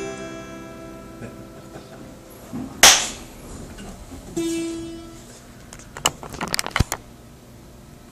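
Acoustic guitar's final strummed chord ringing out and fading. A sharp brushing noise comes about three seconds in, then a short plucked chord rings briefly, followed by scattered clicks and knocks.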